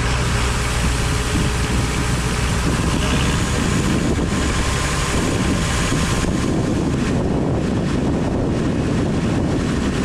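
New Holland TR89 combine harvester running while it unloads wheat through its auger into a bin: a steady engine drone with the rush of grain pouring in.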